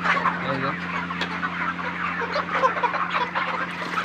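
A flock of 40-day-old broiler chickens clucking and chirping continuously, over a steady low hum.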